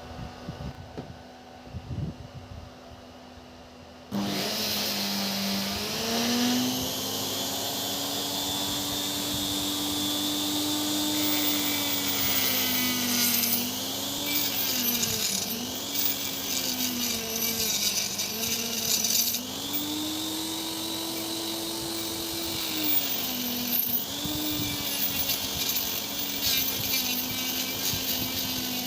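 A small electric power tool switches on about four seconds in and runs, its motor pitch rising and sagging again and again as it is loaded, with a scraping, cutting noise over it.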